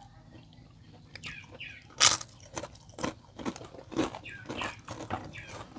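Close-up chewing and crunching of food eaten by hand, picked up by a clip-on microphone: a run of crisp bites and chews, the loudest crunch about two seconds in.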